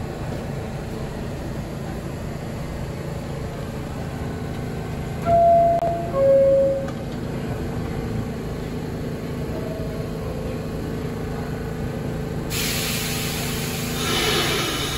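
New York City subway train standing at the platform, its equipment giving a steady hum. About five seconds in, the two-note falling door-closing chime sounds. Near the end a sudden hiss starts and the noise builds as the train begins to pull out.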